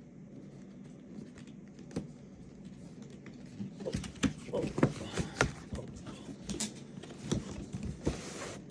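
Cardboard packaging of a mesh WiFi kit being handled and opened: scattered knocks, taps and scrapes from about four seconds in, over a faint low steady hum.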